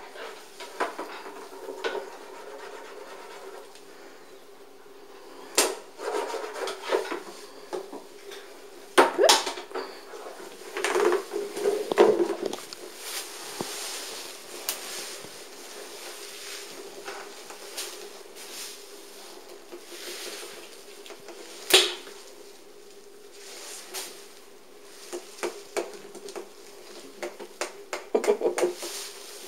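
Scattered knocks and clatters of a cat playing with a feather wand toy, its paws and the toy striking the shelf and floor, with a cluster of quick knocks near the end, over a steady hum.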